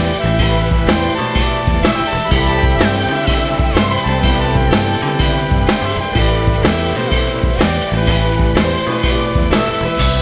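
Background rock music with a steady drum beat, about two beats a second, under bass and guitar.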